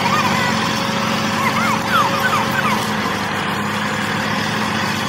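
Tractor engine running steadily at an even pitch, with a few short high chirps between about one and a half and three seconds in.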